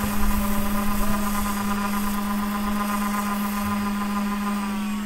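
Electric sander running steadily with a constant hum while its spinning sanding disc grinds the epoxy-coated magnet rotor of a BLDC submersible pump motor down to size. The aim is a rotor that clears the stator. The hum's pitch sags slightly near the end.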